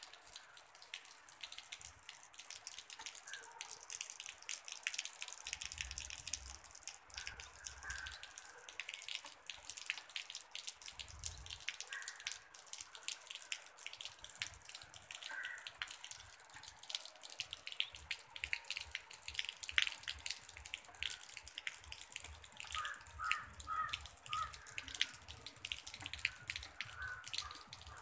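Rain falling: a steady hiss of rain with many close, sharp drips pattering throughout.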